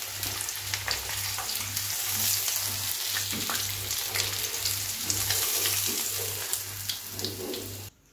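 Flour-coated chicken pieces frying in hot oil in a frying pan, a dense steady sizzle with small crackles and pops as the pieces are turned with tongs. It cuts off abruptly near the end.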